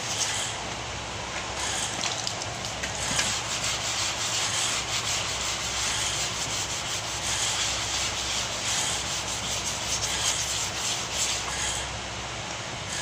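Sandpaper on a hand block rubbing over a Hyundai Accent's repaired front fender in continuous back-and-forth strokes, a steady scratchy sanding sound: the panel is being smoothed by hand before it is painted.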